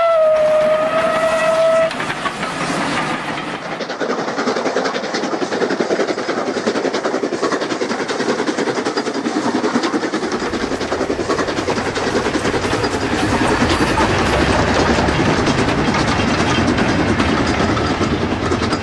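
OO gauge Robinson A5 4-6-2 tank locomotive model: a steam whistle that stops about two seconds in, then steady running noise as the locomotive moves, with a deeper rumble joining about ten seconds in.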